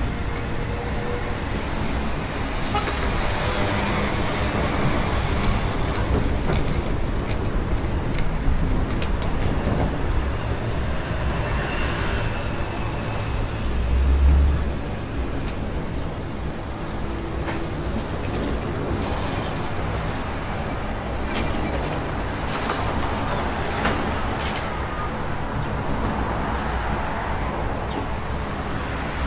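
City street traffic: a steady wash of cars and buses passing, with a short horn-like tone just before the middle and a deep rumble that swells briefly about halfway through.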